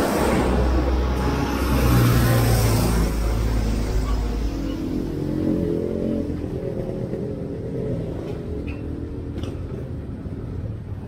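White box truck's engine rumbling as it drives past close by, loudest about two seconds in, then fading away.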